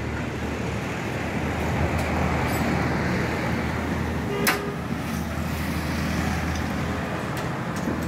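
Steady low engine rumble with road traffic noise, and a single sharp metallic click about four and a half seconds in.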